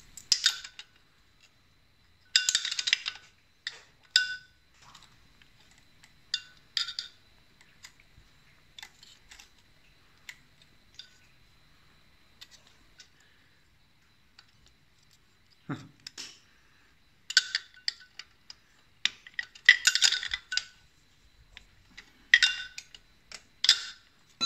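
Intermittent metallic clicks, clinks and scrapes of a small wrench and feeler gauge working the rocker-arm valve adjuster on a Bajaj Boxer 150's cylinder head, as the valve clearance is set. One duller knock comes about two-thirds of the way through.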